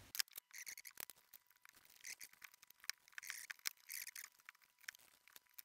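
Faint, scattered clicks and short rustles of small household objects being handled and moved about.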